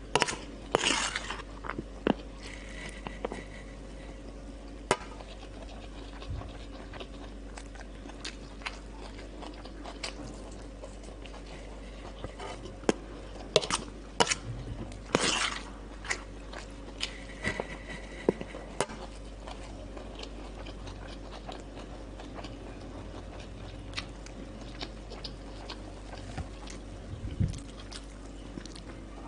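Close-up eating sounds: chewing and biting mouthfuls of rice and breaded chicken, with a metal spoon scraping and clinking against a steel plate. The spoon clicks come scattered, thickest about halfway through.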